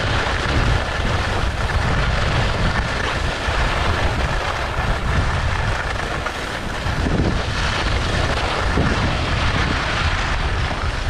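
Wind buffeting the microphone of a skier moving downhill, a steady low rumble, over the hiss and scrape of skis on hard-packed snow.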